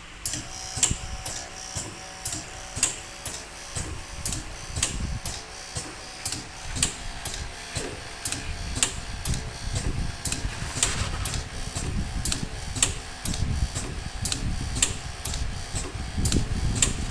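Pneumatic connector socket strength tester running its automatic test cycle: the air-driven cylinders at the two workstations stroke up and down, with sharp clicks about twice a second over a low rumble and a faint steady hum.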